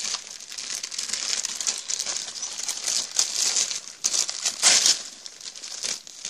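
Gift wrapping crinkling and tearing as a present is unwrapped by hand, with one louder rip a little past two-thirds of the way through.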